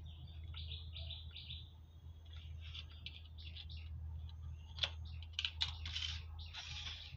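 Small birds chirping in short quick runs of high chirps, over a steady low electrical hum, with a sharp click about five seconds in.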